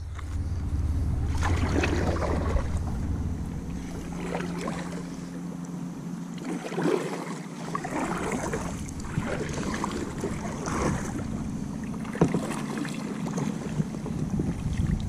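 Kayak paddle strokes dipping and splashing in the water, one every second or two, with wind rumbling on the microphone over the first several seconds.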